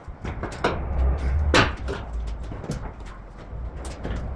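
Hand tools and loose parts clicking and knocking against car metal in an engine bay being taken apart, in a string of separate short knocks, the loudest about one and a half seconds in. A steady low hum runs underneath.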